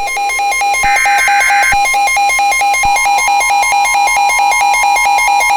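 Emergency Alert System-style alert tones. A harsh electronic tone pulses about four times a second, a short burst of buzzing data noise comes about a second in, and a steady higher tone joins about three seconds in. Together they announce a new warning message.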